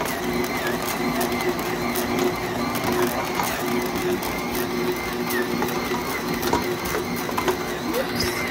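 Pampered Chef Deluxe Stand Mixer running steadily on its knead setting, its motor humming as the dough hook works a bread dough, with frequent light knocks.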